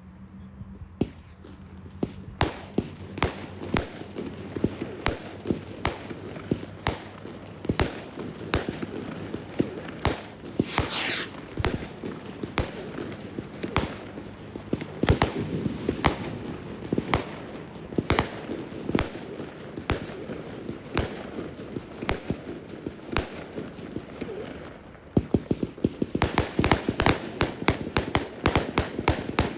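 Fireworks display: a steady run of sharp bangs, roughly two a second, with a whistle around eleven seconds in. Near the end it turns into a dense, rapid volley of reports.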